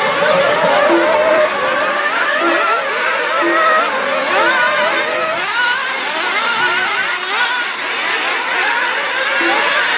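Several nitro RC buggies' small two-stroke glow engines racing together, each revving up and down in high-pitched, overlapping, wavering whines as the cars accelerate and brake through the track.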